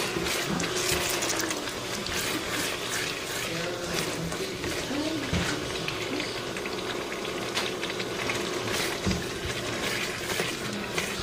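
Ground meat in barbecue sauce sizzling and bubbling as it fries in a pot while it is stirred with a spatula, a steady sizzle dotted with many small crackling pops.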